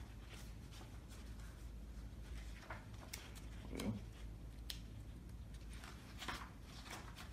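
Faint rustles and handling noises of a paperback picture book's pages being turned, with a soft low thump about four seconds in, over a steady low room hum.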